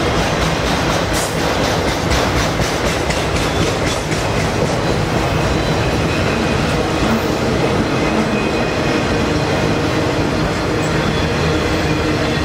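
Autorack freight cars rolling past: a steady, loud rumble of steel wheels on the rails, with runs of repeated wheel clicks that are strongest in the first few seconds.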